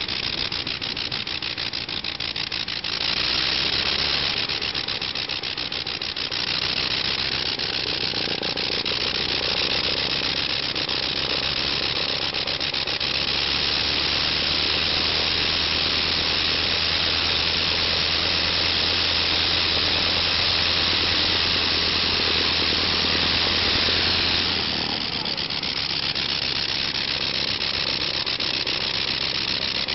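Le Rhône rotary engine running with its propeller spinning. It picks up about three seconds in and holds a higher, steady speed for about ten seconds after the middle, then drops back near the end.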